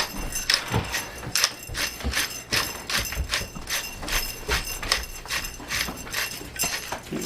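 Seasoning being added to a bowl of ground beef and pork: a steady run of sharp clicks and taps, about three a second.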